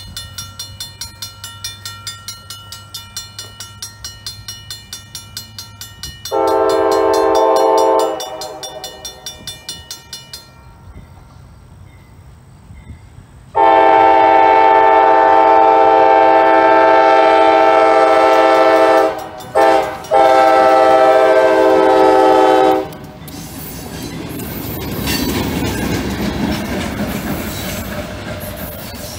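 Grade-crossing bell ringing rapidly, then a diesel locomotive's multi-tone air horn sounding the crossing signal: a short blast, a long blast, a brief toot and a final long blast. Then two diesel locomotives and a loaded gondola rumble over the crossing, wheels clacking on the rails.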